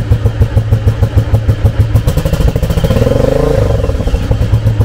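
V-twin motorcycle engine idling with an even, lumpy beat through open Cobra straight-through mufflers with no dB-killer baffles fitted. About three seconds in, the throttle is blipped once and the pitch rises and drops back to idle.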